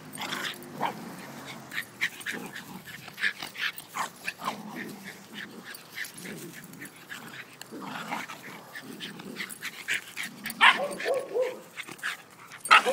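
A dog and a puppy play-fighting, with repeated short yips and barks; the loudest calls come in the last two seconds or so.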